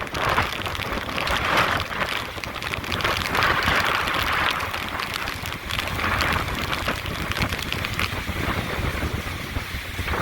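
Hurricane-force wind and driving rain. The gusts swell and ease every second or two over a low rumble of wind hitting the microphone.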